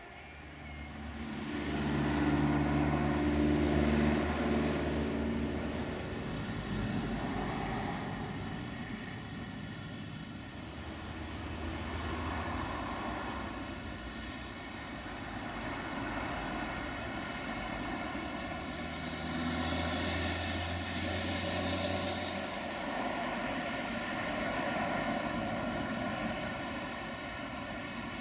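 Steady engine drone with a low hum, swelling and fading slowly, loudest near the start and again about two-thirds through.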